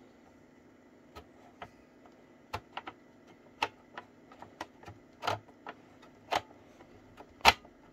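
Irregular clicks and knocks from a hand handling a Unitra ZRK MK 121 cassette recorder's casing and controls, the loudest knock near the end.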